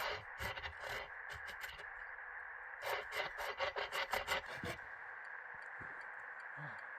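A hand saw cutting firewood, in two runs of quick rasping strokes: one over the first couple of seconds and another from about three to five seconds in.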